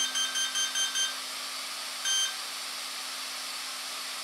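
HobbyWing Platinum ESC beeping through the helicopter's brushless motor at power-up: six short, quick beeps counting the battery's cells, then one longer beep about two seconds in, over a steady low hum. No double beep follows, so the ESC has not entered throttle calibration.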